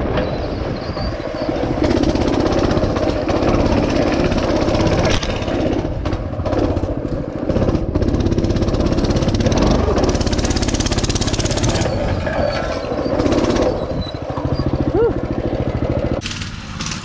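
Small mini bike engine running as the bike is ridden, its speed rising and falling.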